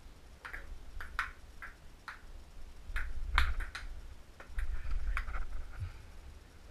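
Table tennis rally: a celluloid ball clicking off paddles and the table, a sharp hit about every half second, the loudest one midway. Low thuds of movement come underneath in places.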